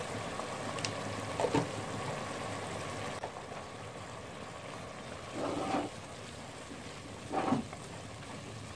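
Onion-and-spice masala sizzling and bubbling steadily in oil and a little water in a cooking pot. A spatula knocks and scrapes against the pot three times as the masala is stirred.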